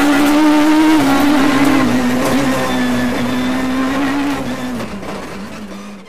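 Peugeot 306 Maxi rally car's naturally aspirated four-cylinder engine running hard at high revs, heard from inside the cabin. Its pitch dips a little a few times, and the sound fades out near the end.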